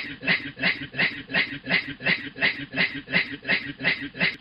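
A man's voice imitating a train, rhythmic breathy chugging at about three pulses a second.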